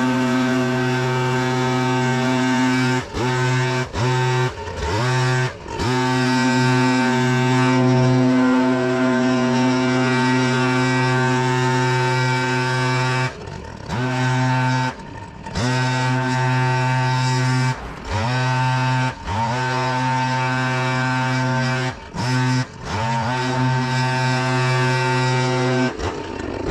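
Engine-driven leaf vacuum running at a steady high speed. Its engine note briefly sags and drops in pitch about ten times, then picks back up.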